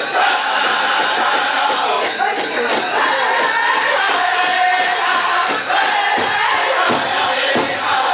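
Powwow drum group singing a men's chicken dance song over a steady drumbeat; the drum strokes stand out more clearly about two-thirds of the way in.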